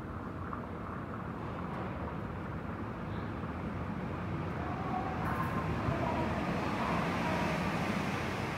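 Steady vehicle rumble growing gradually louder, with a faint whine coming in about five seconds in.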